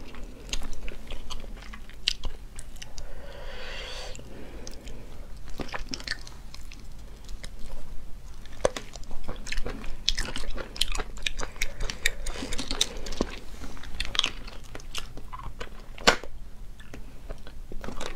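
Close-miked eating of small sea snails in their shells: sucking the meat out and chewing, with many sharp clicks of shell. Two longer sucking noises come about three seconds in and again about twelve seconds in.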